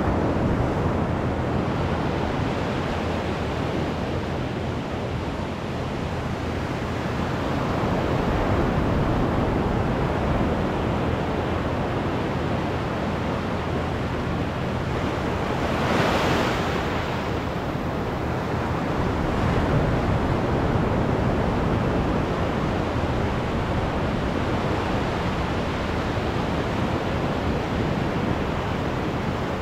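Surf on a sandy beach: waves breaking offshore and washing up the sand, a steady rush that slowly swells and ebbs, with one brief louder rush about halfway through.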